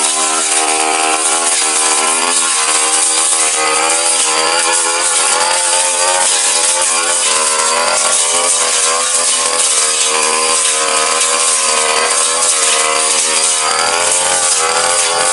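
Backpack brush cutter engine running hard while its blade cuts grass and small brush, its pitch rising and falling continually as the load changes.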